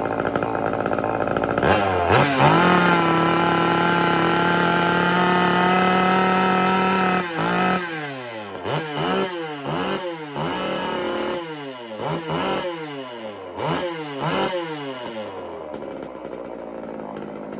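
Two-stroke Homelite chainsaw running up from idle and held at high, steady wide-open throttle for about five seconds, then blipped up and down about eight times. Near the end the engine sound falls away.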